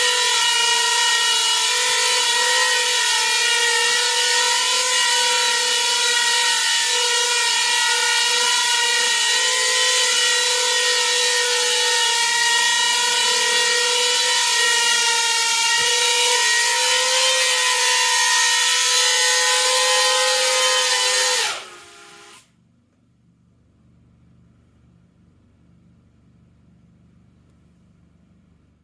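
Small coaxial-rotor copter's motors and stacked rotors whining steadily in flight: a loud, dense, high whine of many tones. About three quarters of the way through, the pitch drops briefly and the whine cuts off as the motors stop, leaving only a faint low hum.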